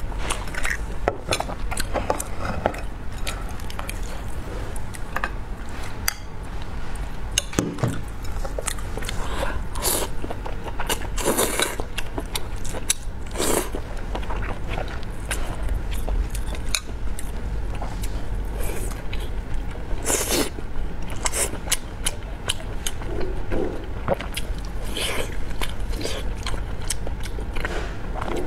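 Close-miked eating: chewing and mouth sounds over braised pork belly and rice, with several louder noisy sucking bursts as glass noodles are slurped in. Chopsticks and a spoon click and scrape against a glass bowl, over a steady low hum.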